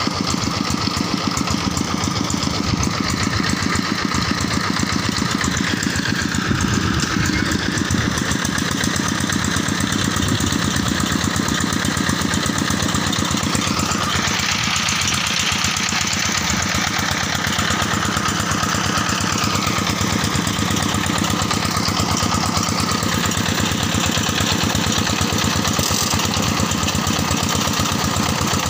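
Single-cylinder diesel engine of a two-wheel tractor running steadily with a rapid, even chug, working under load as it hauls a cart of rice sacks through a shallow stream.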